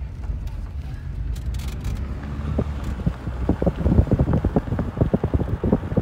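Car driving on an unpaved gravel road, heard from inside: a steady low road rumble with wind on the microphone. From about halfway on, a rapid, irregular clatter of knocks and rattles rises over it as the car runs over the rough surface.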